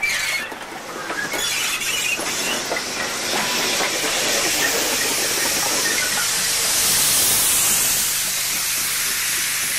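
Steam locomotive passing close by at low speed, its cylinder drain cocks blowing steam in a loud, steady hiss that swells to its loudest about seven to eight seconds in.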